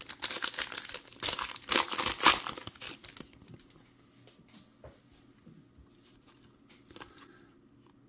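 Foil trading-card pack torn open and crinkled for about three seconds, then much quieter, with faint clicks as the cards inside are handled.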